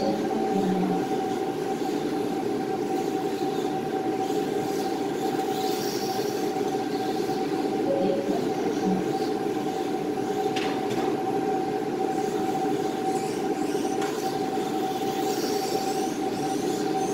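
Steady mechanical hum with a constant tone. Over it come faint high whines that rise and fall as the small electric motors of Mini-Z RC cars speed up and slow down on the track.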